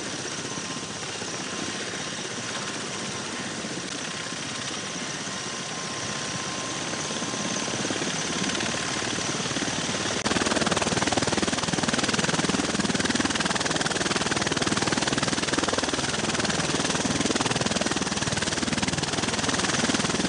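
Helicopter running, a steady rushing noise that grows louder and deeper about halfway through.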